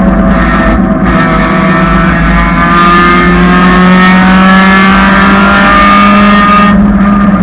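1999 Honda Civic's four-cylinder engine running under load, its pitch easing down slightly and then climbing again after about five seconds.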